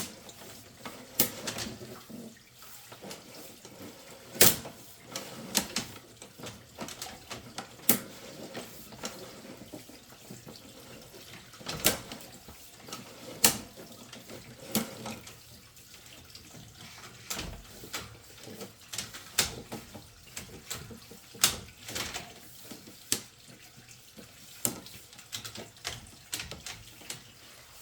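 Water running and trickling in the background, broken by irregular sharp clicks and knocks every second or few.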